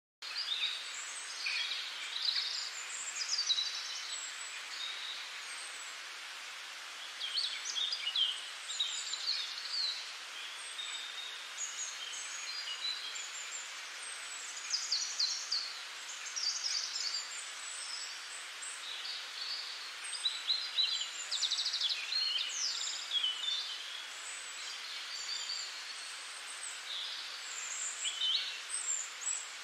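Birdsong: several small birds chirping in short, quick calls, one after another, over a steady background hiss.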